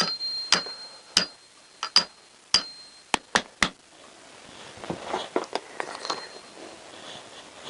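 Hammer tapping a collar-type seal driver, driving a new oil seal home into a Honda CBR1000F front fork slider. There are about eight sharp taps, roughly two a second, several leaving a brief metallic ring. After them come a few lighter clicks and knocks as the tools are handled.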